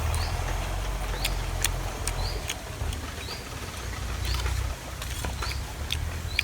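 Steady low rumble of a farm tractor engine working in the fields. Short high chirps and clicks repeat over it every half second or so.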